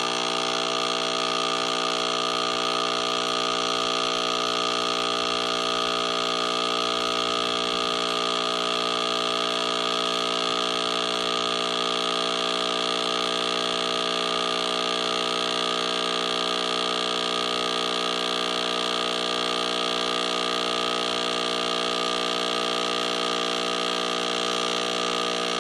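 DeLonghi Nespresso Inissia espresso machine's vibratory pump running steadily as it brews a capsule coffee, an even hum with a hiss above it. It cuts off suddenly near the end, when the held brew button is released at the new programmed cup size.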